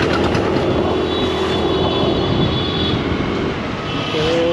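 Scooter engine running while riding through traffic, a steady hum under heavy wind rush on the microphone.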